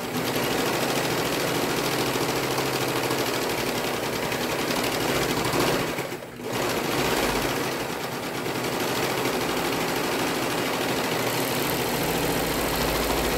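Brother 1034DX serger (overlocker) running fast, stitching a seam along the raw edge of two fabric layers and trimming it even. It slows briefly about six seconds in, then runs on.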